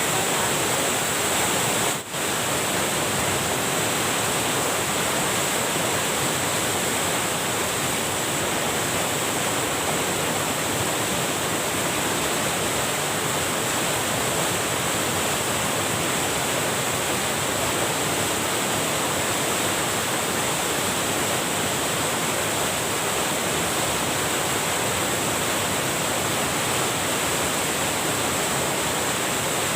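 Steady rushing of water pouring over a small weir cascade, with a momentary break about two seconds in.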